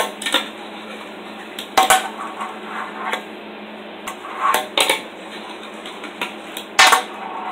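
Teak Tuning fingerboard with Prodigy trucks popping and landing during tricks on a tabletop obstacle: a series of sharp clacks and clatters, the loudest at the start, just before two seconds and about seven seconds in, over a steady faint hum.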